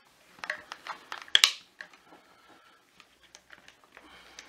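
Plastic clicks and knocks from the black plastic housing of a Miele Triflex HX1 Pro vacuum's motor unit being handled and pried apart by hand. There are a few sharp knocks in the first second and a half, the loudest about a second and a half in, then lighter scattered ticks.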